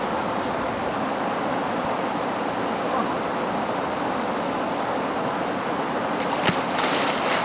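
Steady rushing of river water, with a sharp click about six and a half seconds in.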